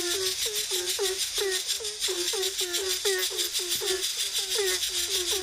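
A bird calling in a fast, unbroken series of short, pitched notes, about four or five a second, with a raspy, rattling hiss.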